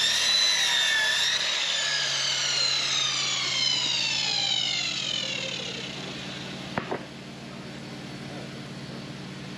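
Electric power saw spinning up and cutting lumber for 2x10 joists, its motor's whine held briefly, then winding down slowly in falling pitch once the trigger is released. A sharp double knock comes near the end of the wind-down, over a steady low hum.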